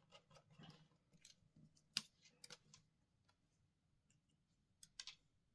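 Faint, scattered clicks and taps of a small screwdriver and tiny screws on a smartphone's metal frame during reassembly, the sharpest about two seconds in and a couple more near the end.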